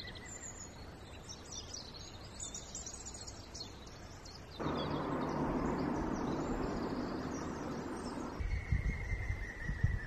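Small woodland birds chirping and calling, with a series of whistled, slightly falling notes near the end. A steady rushing noise starts abruptly a little before halfway and cuts off just as abruptly a few seconds later, and low thumps come in near the end.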